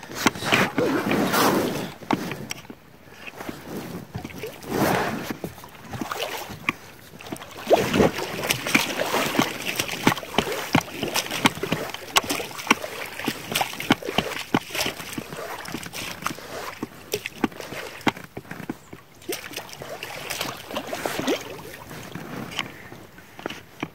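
Water splashing and sloshing against a small boat moving on a river, in swells every few seconds, with many small knocks and clicks on the hull.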